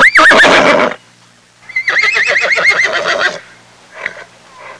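Horse whinnying twice: a short call at the start, then a longer quavering whinny from about two seconds in.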